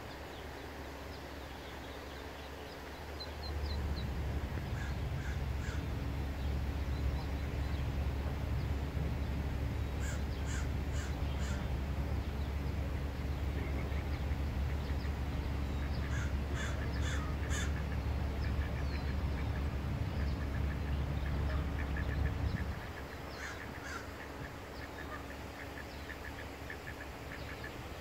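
A bird caws in two runs of three or four harsh calls, about ten and sixteen seconds in. Beneath them a low steady rumble with a faint hum starts about three and a half seconds in and cuts off suddenly near twenty-three seconds.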